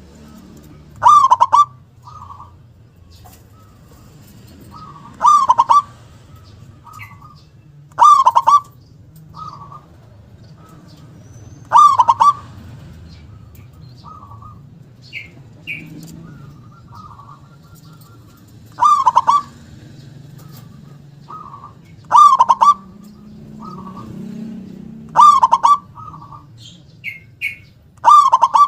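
Zebra dove (perkutut) singing: eight loud, short cooing phrases of quick clustered notes, repeated every few seconds, with softer single coos between them.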